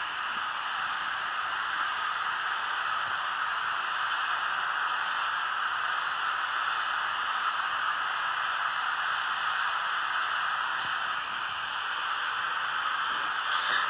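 Steady hiss like static, even throughout, with no speech.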